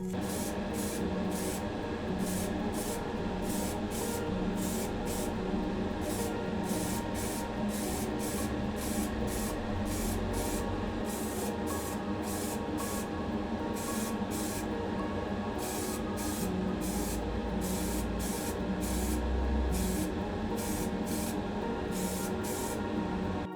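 Paint being sprayed onto a model's interior part in short hissing bursts, about two a second, over steady background music.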